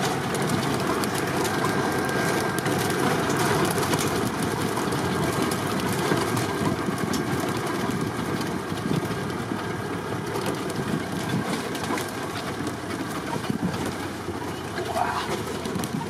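A vehicle engine idling steadily, a continuous low rumble with no change in speed.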